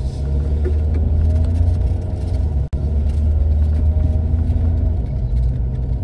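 Car engine and road rumble heard from inside the cabin while driving, steady and deep, cutting out for an instant about halfway through.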